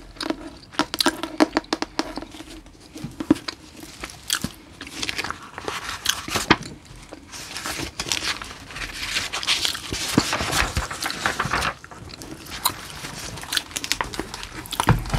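Hardcover book handled close to the microphone: a run of quick taps and clicks of long fingernails on the cover, then its paper pages fanned and flipped in long rustling sweeps.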